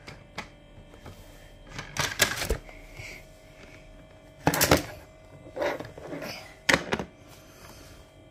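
Plastic toy cars and playset pieces being handled and set down on a table: a few short clattering knocks and scrapes, the loudest about four and a half seconds in and again near seven seconds.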